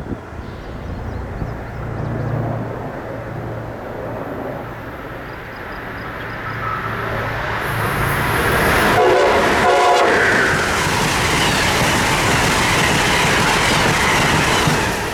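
An Amtrak Northeast Regional passenger train approaches and passes at speed. It sounds its horn briefly about nine seconds in, followed by the loud, steady rush and rail clatter of the train going by.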